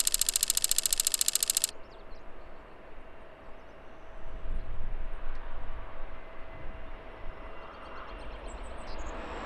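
A loud, rapidly pulsing electronic buzz for under two seconds at the start, then the low rumble of distant jet aircraft at the airport, swelling about five seconds in.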